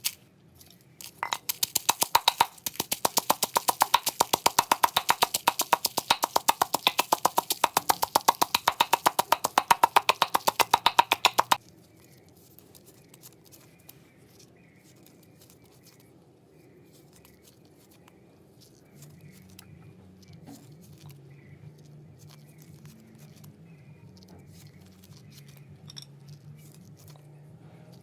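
Rapid, even knocking, several sharp strikes a second, that runs for about ten seconds and then stops abruptly. After it comes a faint low hum with scattered light clicks.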